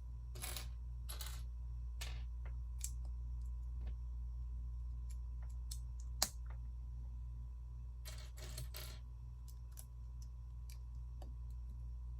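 Plastic Lego pieces being handled and fitted: scattered light clicks and rustles, with one sharp click about six seconds in, over a steady low hum.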